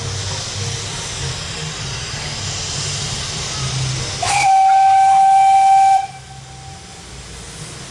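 Steam locomotive 464.202 approaching with steady hiss and low running noise, then sounding one steady steam-whistle blast of just under two seconds about four seconds in, the loudest sound here. After the whistle cuts off, the locomotive's noise is quieter.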